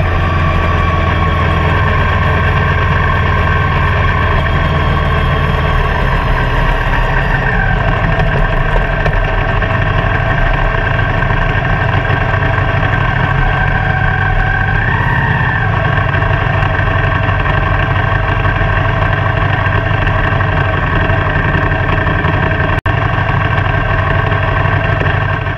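Motorcycle engine running steadily at low road speed, its pitch shifting about seven and fifteen seconds in as the revs change. The sound drops out for a split second near the end.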